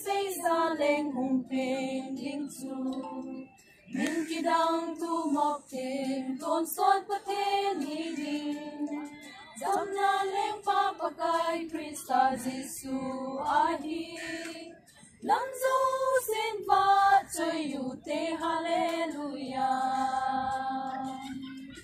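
A group of women singing together unaccompanied, in long held melodic phrases with brief pauses between lines.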